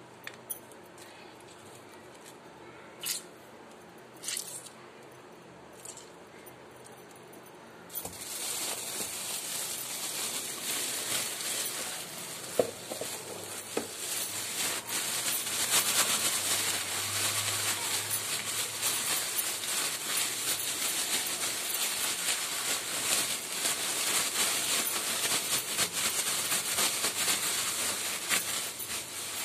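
Thin plastic bag crinkling and rustling continuously, starting about a quarter of the way in, as it is shaken and kneaded to coat fish in a flour-and-spice mix. Before that it is quiet, with a few soft clicks.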